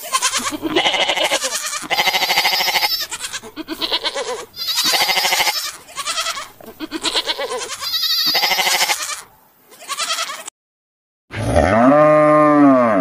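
A flock of sheep and lambs bleating, many wavering calls overlapping one after another. After a short silence, a cow gives one long moo that rises and then falls in pitch.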